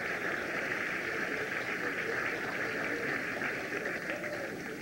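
Children's choir singing, muffled and largely buried under a steady hiss from degraded VHS tape audio.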